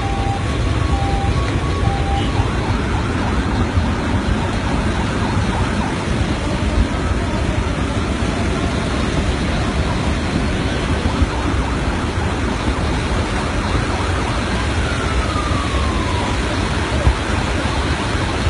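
Flash-flood torrent of muddy water rushing through a rocky wadi, a loud, steady, unbroken rush.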